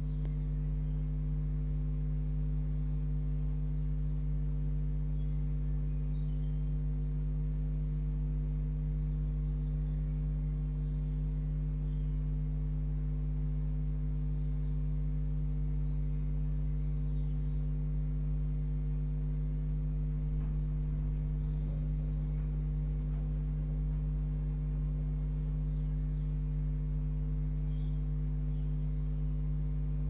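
Steady electrical mains hum, a low buzz made of several fixed tones, with a few faint, brief high chirps now and then.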